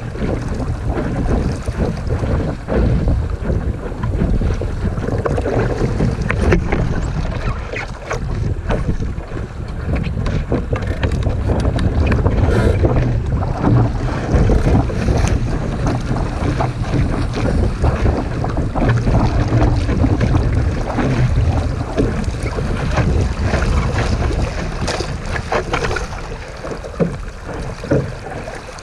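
Wind buffeting the microphone aboard a Sunfish sailboat under sail, with water rushing and splashing against the hull in many short, sharp slaps.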